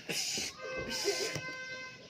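A voice imitating an airplane: a short hiss, then a steady, held high tone for about a second.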